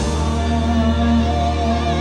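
Live rock band holding a sustained chord over a steady low bass note, with slight wavering in the held notes and no drum hits.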